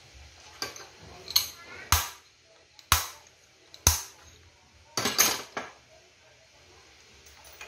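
Sharp metal-on-metal knocks and clinks, about eight of them, irregularly spaced, as a steel rod or wrench is worked against the nose of a handheld grinder to change or free its bit.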